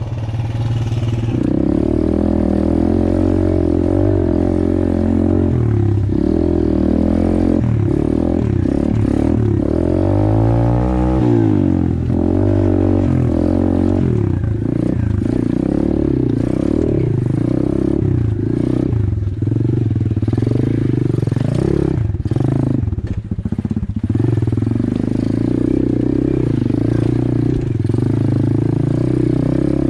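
A 125cc pit bike's single-cylinder engine running under load while being ridden on a rough trail. Its pitch rises and falls repeatedly as the throttle is worked, with rattling and clattering from the bike over the bumps.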